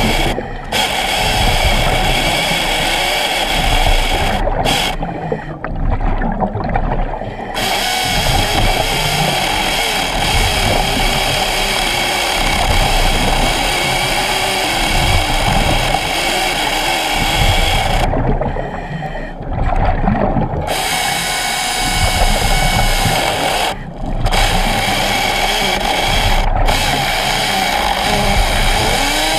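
Hydraulic chainsaw, fed about 4 gallons per minute of oil, running underwater and cutting through a wooden timber: a steady, loud whine. Twice, about five seconds in and again near eighteen seconds, the higher part of the sound drops away for a couple of seconds before returning.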